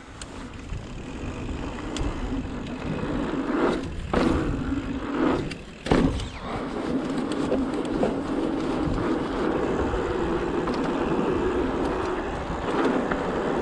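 Mountain bike tyres rolling fast over a hard-packed dirt jump track, with wind rumbling on the camera microphone. The noise builds as speed picks up, drops out briefly twice over the jumps about four and six seconds in, and comes back with a loud jolt on the second landing.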